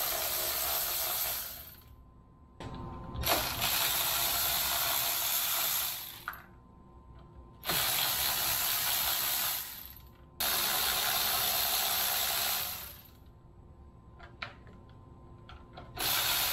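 Cordless power ratchet running in repeated bursts of two to three seconds, spinning nuts off the golf cart's lead-acid battery terminals, with faint clicks of the tool and nuts between bursts.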